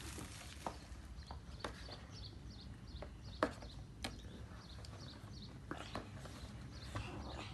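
Cardboard puzzle box being opened by hand: scattered light clicks and taps of the flaps and lid, the sharpest about three and a half seconds in, with a series of faint short high chirps in the middle.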